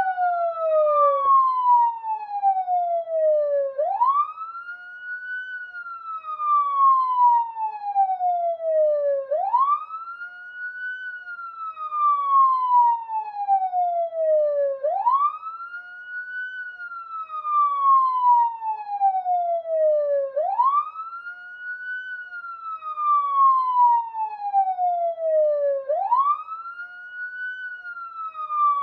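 Police siren sounding a slow wail: each cycle rises quickly in pitch, then falls slowly, about five and a half seconds per cycle, repeating five times.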